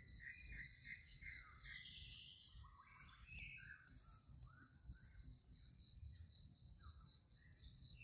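Insects chirping: a high, even, rapidly pulsing trill that keeps going, with short, faint chirps scattered among it.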